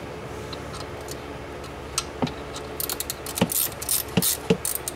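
Wrench tightening the bolts on an A/C compressor mount: sharp metallic clicks and taps, some in quick little runs, starting about two seconds in.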